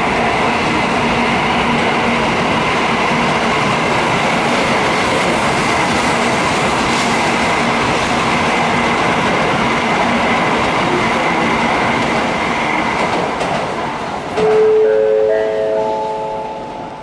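N700 series Shinkansen bullet train accelerating away from the platform: a steady rushing run with an even hum underneath, fading from about 13 seconds in as it recedes. Near the end a platform chime rings, four clear held notes entering one after another and rising in pitch.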